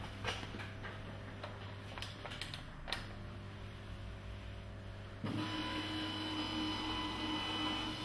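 A steady low electrical hum with a few light clicks; about five seconds in, the phonocardiograph's chart recorder starts up with a steady whirring drone as it prints the recorded traces.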